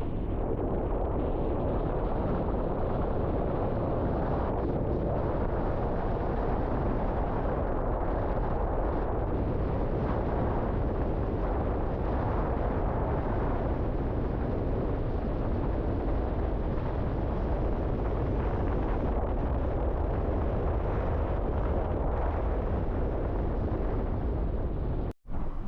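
River water rushing steadily, a dense, even roar heavy in the low end. It cuts out for a moment near the end.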